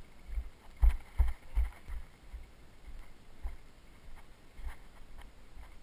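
Mountain bike jolting along a rough dirt singletrack: irregular knocks, thumps and rattles, with the heaviest few jolts about a second in.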